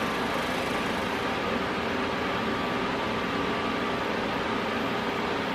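Everlast Power MTS 251 SI welder running with its wire-feed motor driving welding wire through the liner of the MIG gun: a steady mechanical hum with a constant whine, unchanging throughout.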